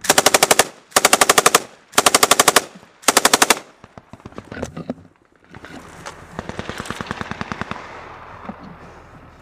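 MK-48 7.62 mm light machine gun firing four short bursts of rapid automatic fire right at the microphone, each about two-thirds of a second. About two seconds after the last burst, quieter automatic gunfire rattles for a couple of seconds from another gun farther off.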